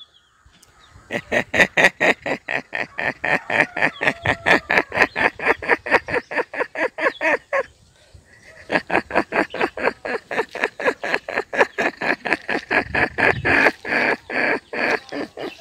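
A man imitating a duck with his mouth: rapid runs of quacks, about five a second, in two long series with a short break about halfway through.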